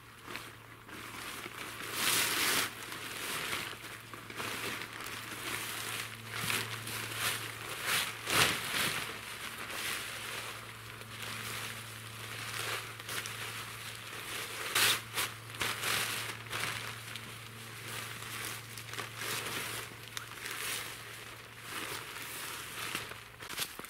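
A large tarp being pulled out, unfolded and shaken open by hand: irregular rustling and crinkling of the fabric, louder with each sharp handling movement.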